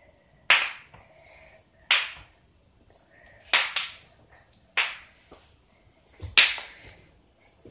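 Wooden kendama ball clacking onto the cups as it is tossed and caught: a sharp knock about every one to one and a half seconds, each dying away quickly.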